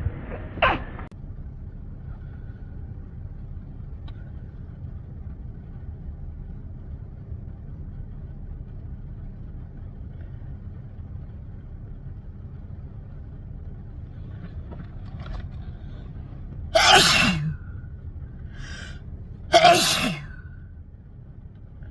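A person sneezing twice, about three seconds apart, near the end: a few short catching breaths build up to the first sneeze, and a quick gasping inhale comes between the two. A steady low hum runs underneath.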